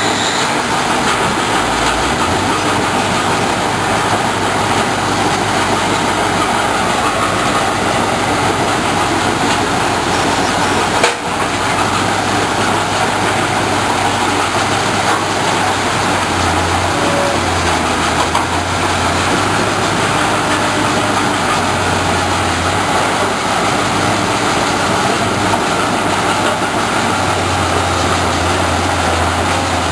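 A Nordberg mobile rock crusher running and crushing brick rubble, a loud, steady noise, with the diesel engine of a Kobelco SK210 excavator working alongside it, its low hum rising and falling. There is a single sharp knock about eleven seconds in.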